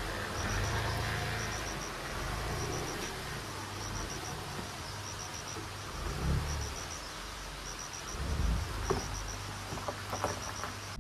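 Tata sedan's engine running as the car pulls out and drives off along a dirt track, with insects chirping in short, evenly repeating groups of high pips.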